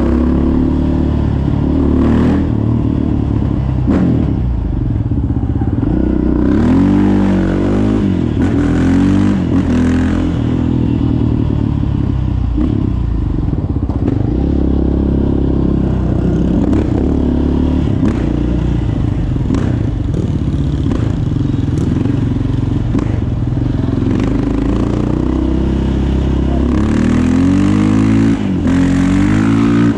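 Yamaha Raptor 700 quad's single-cylinder engine, with a Yoshimura exhaust, being ridden along a street: it accelerates, climbs in pitch and drops back again and again as he shifts and slows, with a few knocks and rattles from the machine.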